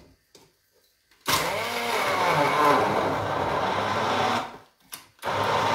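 Immersion blender blending cooked asparagus stalks into a sauce. It starts about a second in, runs for about three seconds with its pitch wavering, stops, then starts again near the end.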